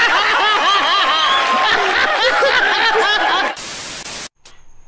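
An audience laughing and clapping, many voices at once, for about three and a half seconds. It is cut off by a short burst of TV static hiss lasting under a second, which stops suddenly.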